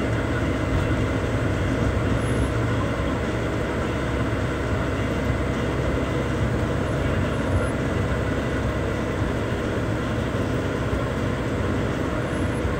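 Steady engine and road noise of a bus under way, heard from inside the cabin.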